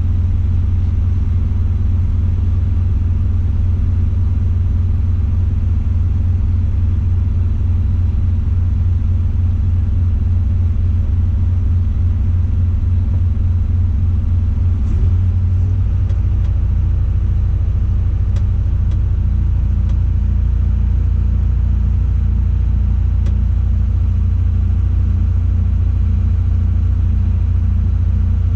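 Tadano 180G-5 all-terrain crane's diesel engine running steadily, a deep rumble heard from inside the operator's cab. The engine note shifts about halfway through and then holds steady at its new pitch.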